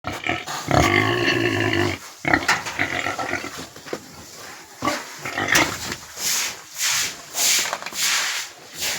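Pigs calling: a long, loud, pitched call about a second in and several shorter calls after it. Near the end comes a run of rough, breathy sounds about twice a second.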